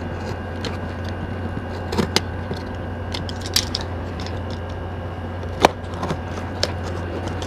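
Box cutter slitting packing tape on a cardboard box: a few scattered clicks and scrapes, the sharpest about five and a half seconds in, over a steady low hum.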